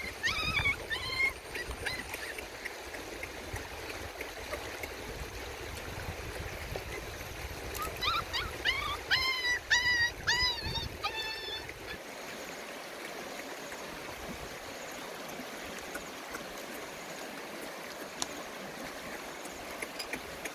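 Puppies whining in short, high-pitched yelps: a few right at the start and a run of about eight around the middle. Under them runs the steady rush of a shallow stony river.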